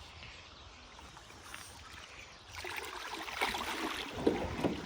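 A large dog moving about at a small jon boat, making irregular rustling with light knocks and scrapes that start about two and a half seconds in.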